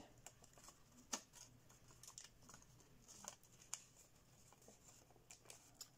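Faint, scattered crackles and ticks of thin kami origami paper being handled and creased between the fingers.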